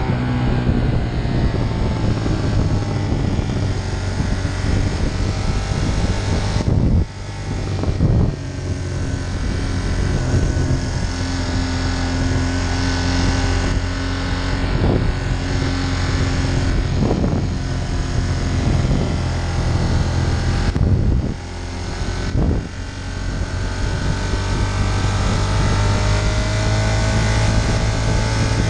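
Ducati Monster 1200's L-twin engine running under way, with wind rushing over the microphone. The engine sound drops off briefly about seven seconds in and twice more around twenty-one to twenty-two seconds, then picks up again.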